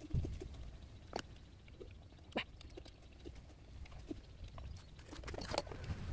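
A person slurping and chewing instant noodles, with a few sharp clicks and a denser stretch of slurping about five seconds in.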